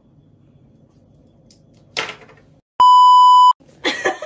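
Censor bleep: a loud, steady electronic tone of one pitch, just under a second long, cut sharply into the track a little past the middle with a moment of dead silence just before it.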